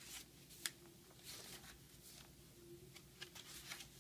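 Paper pages and inserts of a handmade journal being turned and handled: faint rustles, a sharp little click about two-thirds of a second in, and a few light ticks near the end.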